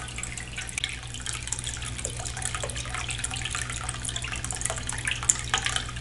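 Small ceramic tabletop fountain running: a thin stream pours from the bottle's spout into the water-filled bowl, trickling and splashing with many small irregular spatters. Underneath is a low steady hum from its tiny recirculating pump.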